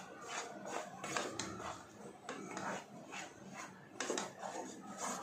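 Wooden spatula scraping and stirring a thick, sticky coconut and milk-powder mixture around a nonstick frying pan, in repeated strokes about two a second. The mixture is cooking down and thickening.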